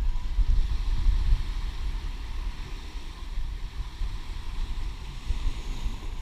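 Wind buffeting the action camera's microphone in an uneven low rumble, over a steady hiss of surf.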